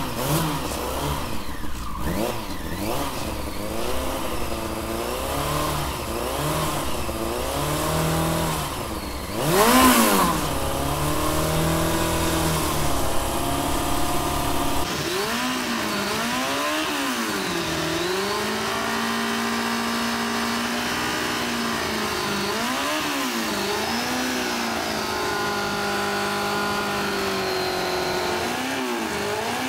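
Yamaha R1's inline-four engine revving repeatedly through a Yoshimura RS-3 exhaust whose outlet is covered by a taped-on balloon, its pitch rising and falling with each blip of the throttle. The loudest rev comes about ten seconds in, and in the second half the revs are held longer between dips.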